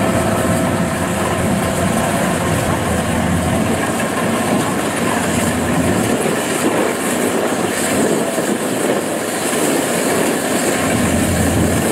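Kubota DC-93 combine harvester running and cutting rice: its diesel engine and threshing machinery make a loud, steady mechanical noise as it works through soft, muddy ground.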